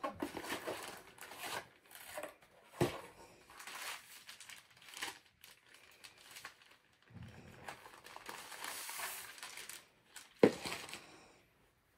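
Paper and plastic packaging rustling and crinkling in bursts as a cardboard box is unpacked and a plastic mailer bag is opened, with two sharp snaps, the louder one near the end.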